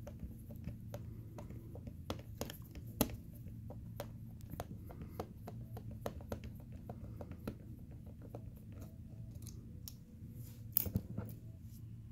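Small metal screw being turned out of an MK8 extruder's aluminium lever arm with a Phillips screwdriver: irregular light clicks and ticks of the screwdriver tip and metal parts, with a louder cluster of clicks near the end as the sprung arm is lifted off.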